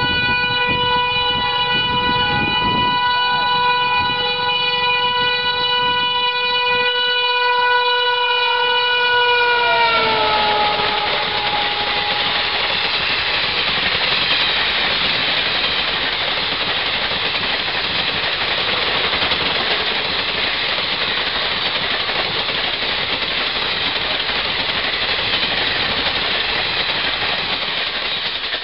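Electric locomotive of an express train sounding one long, multi-tone horn blast as it approaches, with the pitch sliding down as it passes about ten seconds in. Then comes the loud, steady rush of the coaches running through at high speed.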